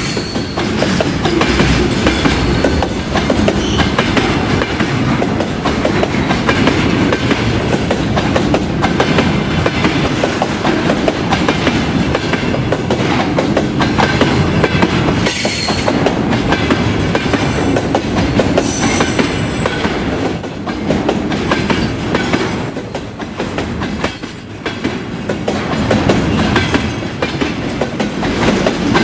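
Container train's wagons rolling past, their wheels clattering rhythmically over the rail joints.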